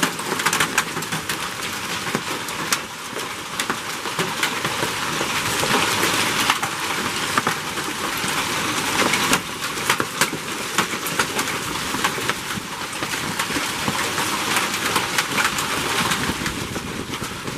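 Hailstorm: heavy rain with hailstones striking the ground and nearby surfaces, a steady hiss packed with many sharp clicks and taps of individual stones.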